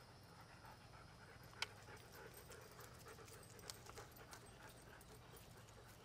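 Dogs, a Doberman and a husky, panting faintly, with one sharp click about one and a half seconds in and a few softer ticks later.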